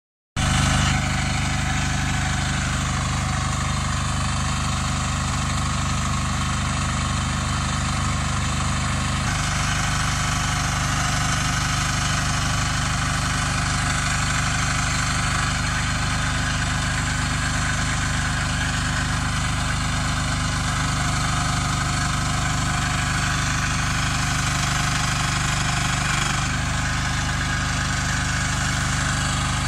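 Shanding SD12 mini excavator's engine running steadily while the machine is driven and its boom worked. The engine note shifts about nine seconds in and again near the end.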